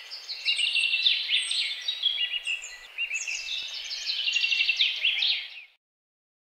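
A chorus of birds chirping and singing over one another, with a faint hiss of forest ambience beneath, cutting off suddenly about five and a half seconds in.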